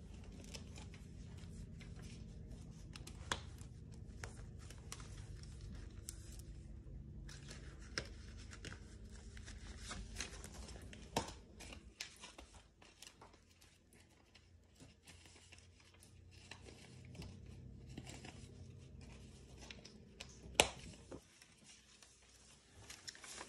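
Paper money being handled: rustling and crinkling with scattered light clicks and knocks, the sharpest about twenty seconds in.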